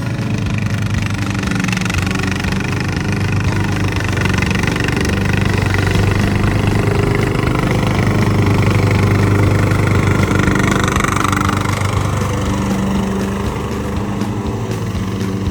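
An engine running steadily, growing louder toward the middle and then easing off.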